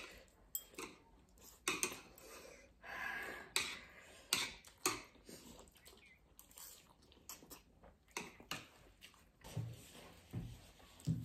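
Eating sounds: noodles slurped and chewed, with scattered short clicks of chopsticks and forks against plates.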